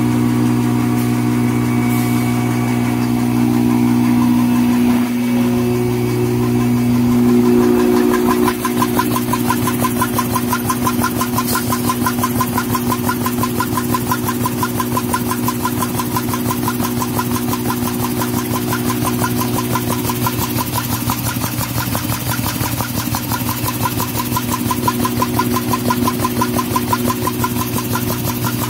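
Industrial Roots blower running with a steady hum. From about eight seconds in, a 5-line N-fold hand towel paper making machine runs over it, its rollers and folding rolls making a fast, even mechanical clatter.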